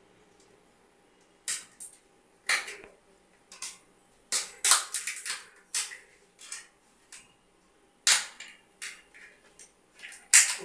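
A wrapper crinkling in the hands as a small packet is torn open and unwrapped: a string of short, sharp, irregular crackles with quiet gaps between, the loudest a little over four seconds in, about eight seconds in and near the end.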